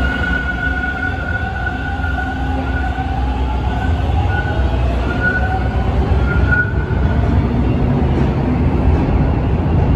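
TTC T1 subway train pulling out of the station and drawing away down the track: a steady low rumble of the train on the rails, with a high whine that rises a little and fades out about seven seconds in.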